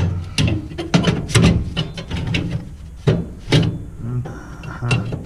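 Metal clanking and knocking as cleaned gas burner tubes are slid back into their slots in a gas boiler, a rapid run of sharp knocks and rattles.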